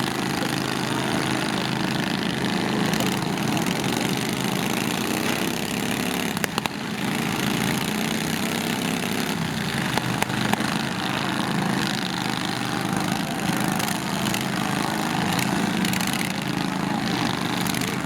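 Small lawn tractor engines running steadily, with a few sharp knocks about six and ten seconds in.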